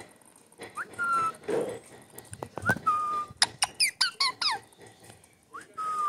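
Young green parakeet calling: three short whistled notes that rise and then hold level, about 1 s in, about 3 s in and near the end, with a quick run of falling chirps in between.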